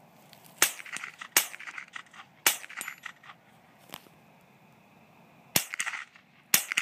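Smith & Wesson M&P 15-22 semi-automatic .22 LR rifle firing six sharp shots at uneven intervals, each followed by a short ringing tail.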